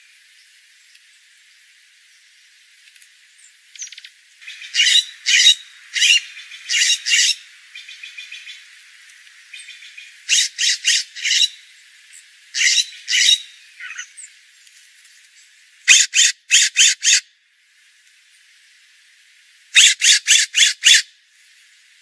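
Jays giving short, harsh calls in quick runs of two to six, five runs in all, with a faint hiss between.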